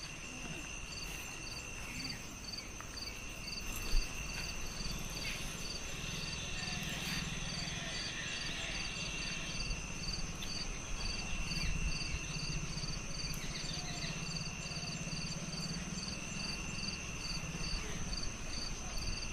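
Crickets and other insects: a steady high buzz with an even, quick chirp repeating a few times a second. A single short tap about four seconds in.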